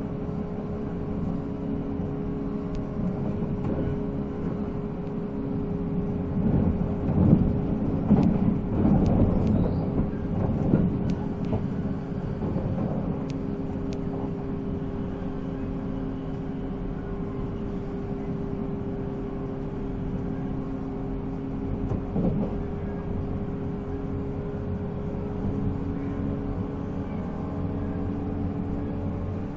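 Running sound of a 485-series electric train at speed: its MT54 traction motors hum at a steady pitch over the rumble of wheels on rail. It gets louder and rougher, with scattered clicks, about 6 to 11 seconds in.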